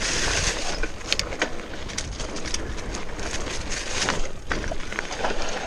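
Giant Talon hardtail mountain bike rolling down a dry dirt trail: its Maxxis Ikon tyres crunching over fallen leaves and dirt, with scattered sharp clicks and rattles from the bike over bumps. Wind buffets the microphone with a low rumble.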